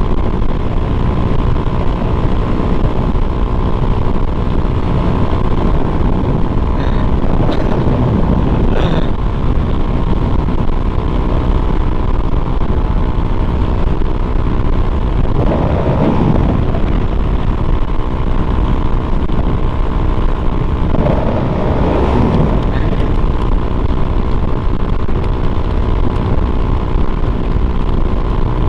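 Honda Click 125i scooter with an aftermarket exhaust pipe and CVT tune, running flat out at about 100 km/h. The engine note holds steady under a heavy rush of wind on the microphone.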